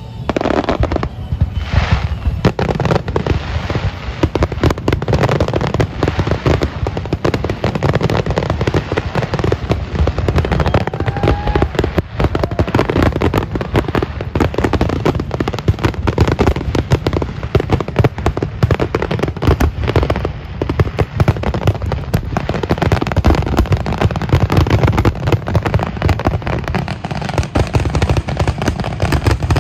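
Fireworks finale: aerial shells bursting in rapid, continuous succession, with deep booms overlapping without a break.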